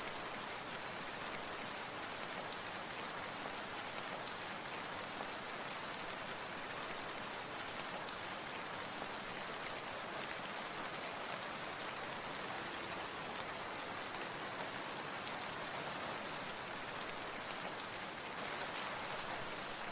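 Steady, even rush of falling water, unbroken throughout, slightly louder near the end.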